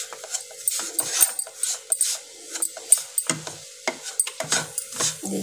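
Wooden spatula scraping and stirring a dry, crumbly mix of besan and sooji in a pan, a string of irregular rasping scrapes several times a second, while the flour roasts in ghee.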